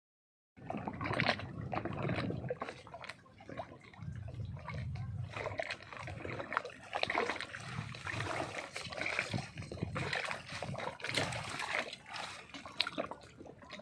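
Water splashing and sloshing in irregular short bursts, as fish leap and thrash at the surface.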